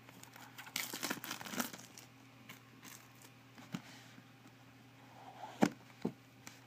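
Plastic shrink wrap crinkling and tearing as it is pulled off a small cardboard box, with quieter rustling after. Two short sharp taps near the end come as the box is opened.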